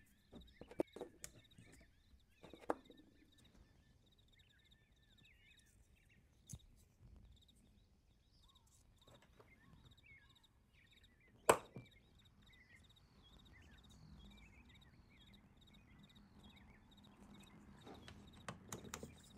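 Sparse light clicks and taps of small watercolour half pans being handled and set against a metal palette tin, with one sharper click just past the middle.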